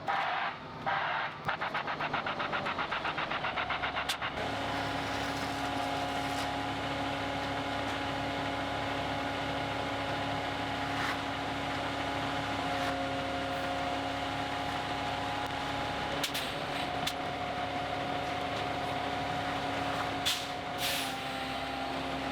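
Concrete mixer truck: its reversing alarm beeps in the first second or so, then its diesel engine runs steadily at raised revs with a droning hum. A few short knocks come late on.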